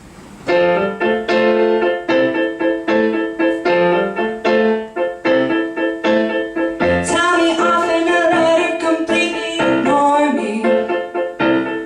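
Live piano playing a song intro of evenly repeated chords, with a woman's singing voice coming in about seven seconds in.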